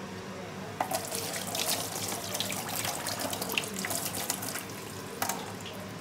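Tap water running and splashing over soapy hands into a stainless steel sink as the lather is rinsed off. The flow starts abruptly about a second in and stops near the end.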